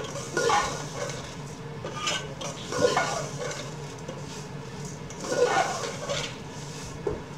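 Slotted steel spoon stirring and scraping vermicelli against the sides of an aluminium pot as it is roasted in a little oil to brown it, in a series of irregular scrapes and knocks about every second or two.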